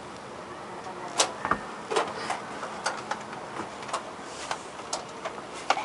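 Door handle and latch of a locked storm door clicking and rattling as it is worked, pushed and pulled: a string of sharp, irregular clicks and knocks, about ten of them, the loudest about a second in.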